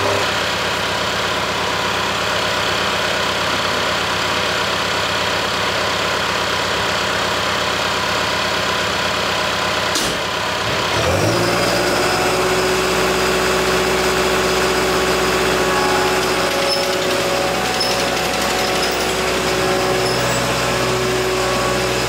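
ASV RT-120 compact track loader's diesel engine running steadily. About eleven seconds in it revs up and holds at a higher, steady speed.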